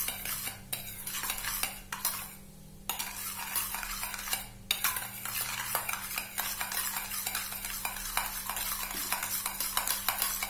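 A metal spoon stirring and scraping a gritty paste of coffee, baking soda and lemon juice in a stainless steel bowl, a quick run of scraping clicks that pauses briefly about two seconds in.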